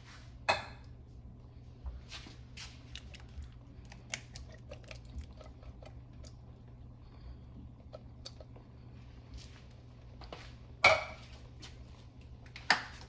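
Kitchen handling sounds while cooking: scattered light clicks and knocks of utensils and containers, with one louder knock about half a second in and two more near the end.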